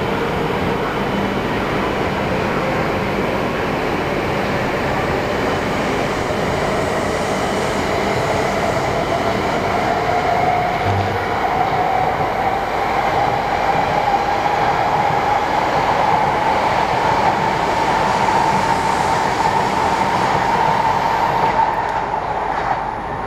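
Shinkansen E5 series train accelerating, its electric traction motors giving a steady rising whine over the running noise as it picks up speed.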